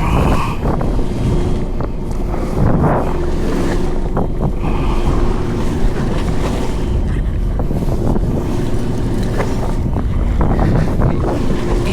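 Wind buffeting the microphone over the noise of a fishing boat and the sea, with a steady low hum and scattered light clicks and knocks.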